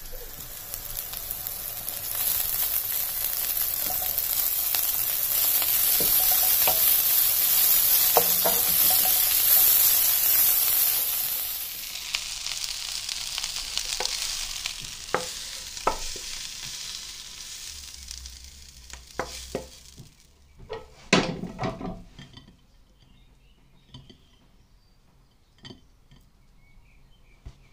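Dryad's saddle mushrooms and wild greens sizzling in hot butter in a frying pan, stirred with a wooden spoon that taps against the pan. The sizzle is loudest for the first dozen seconds, then dies away, followed by a few scattered knocks and clinks.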